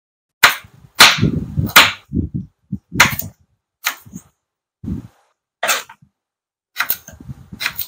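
Kitchen knife chopping a carrot on a cutting board: about nine sharp knocks, unevenly spaced, with short gaps of silence between them.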